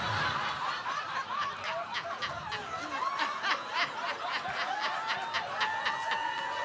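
Audience laughing, with scattered claps joining in from about a second and a half in and a few whoops near the end.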